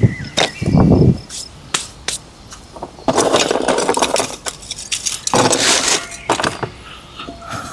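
Handling noises: sharp knocks and clicks, a dull thump about a second in, and two longer stretches of scraping or rustling, one about three seconds in and a shorter one about five and a half seconds in.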